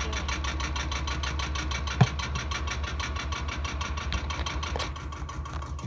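Top-loading impeller washing machine running: a steady low motor hum with a rapid, even pulsing, and one sharp click about two seconds in.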